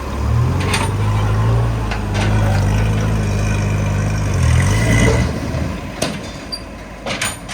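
A motor vehicle's engine running with a steady low hum, which rises in level shortly after the start and dies away a little after five seconds. Near the end come a couple of sharp knocks.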